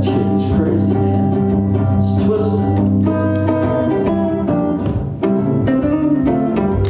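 Live jazz duo music: plucked guitar chords and bass notes under a sung vocal line, the guitar carrying on alone after a few seconds.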